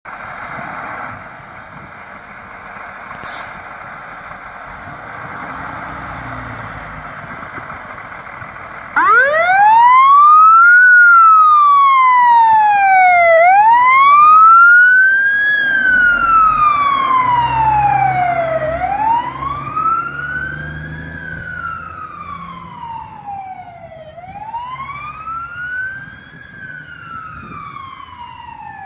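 Fire truck siren starting up about nine seconds in with a sharp rise in pitch, then wailing slowly up and down, about five and a half seconds per cycle, growing fainter over its last several seconds. Before it, a steady rushing noise.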